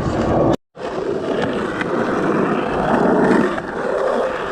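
Skateboard wheels rolling on the pump track, a steady rumbling roar, with a brief dropout about half a second in.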